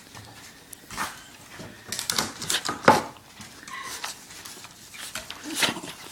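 Dog coughing in short, harsh, irregular bursts, the loudest about three seconds in and another near the end.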